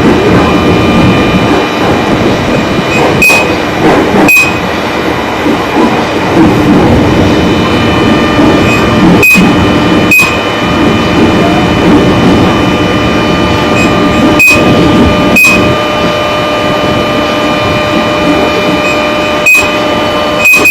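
A JR 205 series electric commuter train running along the track: a steady rumble with faint steady whining tones. Four times, a pair of sharp clacks about a second apart sounds as the wheels pass over rail joints.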